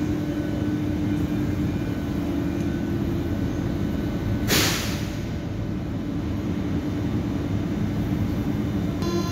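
Athens metro train standing at the platform with its doors open: a steady hum and rumble from its equipment, broken about halfway through by one short, sharp hiss of released air.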